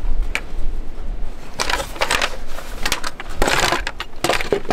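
Air filter element scraping and bumping against the plastic air cleaner housing of a John Deere four-wheel-drive tractor as it is worked into place, in several rough bursts over a low steady rumble.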